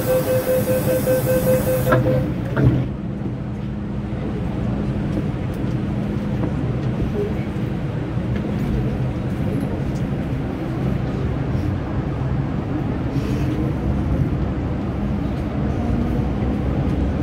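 MTR M-Train door-closing warning beeping for about two seconds, then a knock as the doors shut. The train's motors and wheels then rumble steadily as it pulls away, with a motor whine rising in pitch near the end as it gathers speed.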